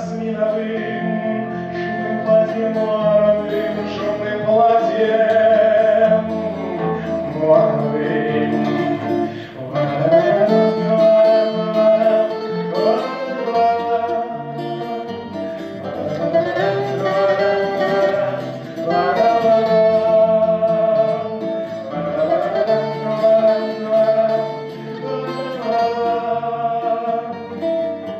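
Acoustic guitars playing an instrumental passage of a song, with a wavering, sliding melody line held over the accompaniment.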